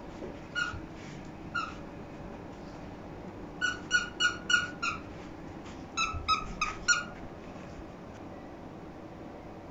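Pug puppy barking for attention in short, high yips: two single barks, then two quick runs of about five barks each.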